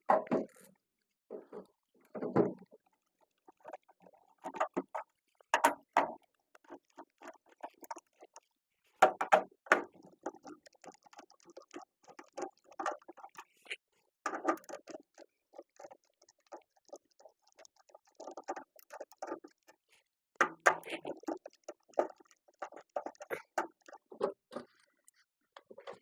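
Screws being taken out of a furnace's sheet-metal burner chamber cover and the cover lifted off: irregular clicks, taps and short metallic rattles.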